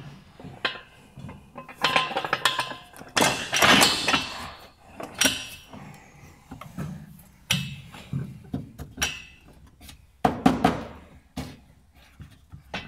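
Irregular metallic clanks, knocks and clatter of tools and parts being handled, with a busier run of clatter about two to four seconds in and another about ten seconds in.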